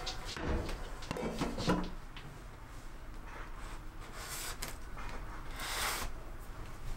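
Handling noises from a freshly baked bread-machine loaf and its metal pan: several knocks and bumps against a wooden cutting board in the first two seconds, then quieter handling with two short rustles near the end.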